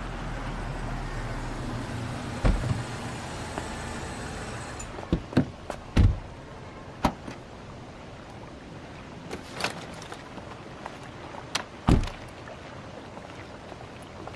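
A Toyota sedan's engine running as it pulls up, stopping about five seconds in. After that come a series of sharp knocks and thuds, such as car doors shutting, the loudest about six and twelve seconds in.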